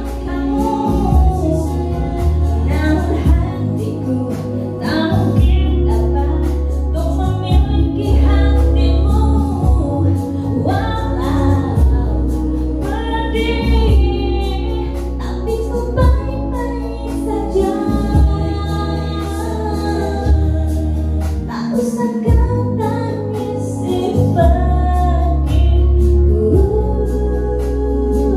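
Music with a woman singing a melody over accompaniment with long, sustained bass notes.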